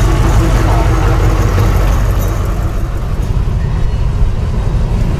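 Steady low rumble of a diesel locomotive's engine at a station.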